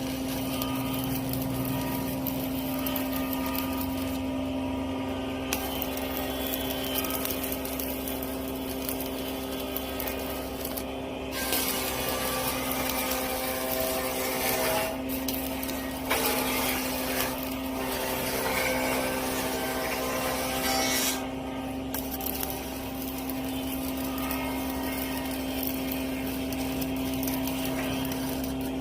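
Metalworking on an iron railing: a steady machine hum runs throughout, overlaid by stretches of harsh hiss that start and stop several times.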